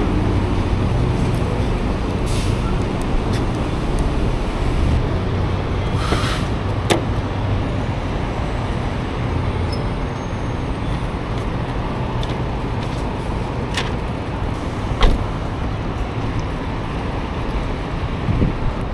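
City street traffic with a heavy vehicle's engine running as a steady low rumble. A short hiss comes about six seconds in, and a few sharp clicks and knocks follow, the loudest about fifteen seconds in.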